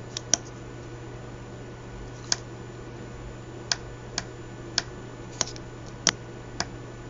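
Keys of a 4x4 matrix keypad being pressed, about nine sharp clicks at uneven intervals, over a steady low electrical hum.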